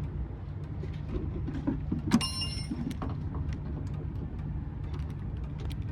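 Small clicks of tools and parts being handled, with one sharp metallic clink about two seconds in that rings briefly, over a steady low hum.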